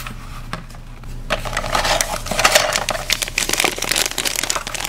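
Light knocks and rustles, then from about a second in a thin clear plastic bag crinkling steadily as hands handle it, with toy lightsabers inside.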